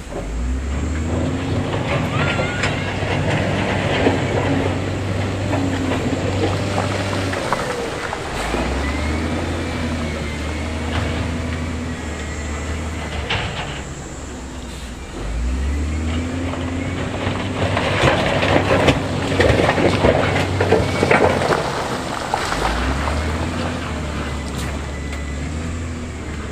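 Wheel loader's diesel engine revving up under load in repeated spells, a few seconds each, with stone crunching and scraping as the loader pushes rock, loudest about a few seconds in and again past the middle.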